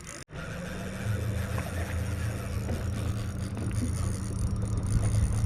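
Boat outboard motor running at a steady low speed, a constant low hum that grows louder about a second in.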